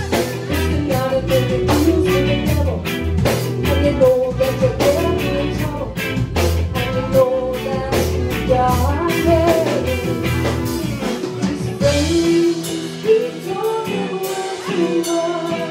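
Live rock band playing: electric guitars and a drum kit keeping a steady beat, with a woman singing over them. About twelve seconds in the low bass drops out, leaving the guitars, voice and lighter percussion.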